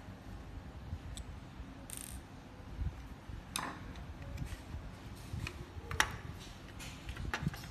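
Scattered clicks and taps of hard plastic as an opened RC transmitter's circuit board and housing are handled, the sharpest click about six seconds in.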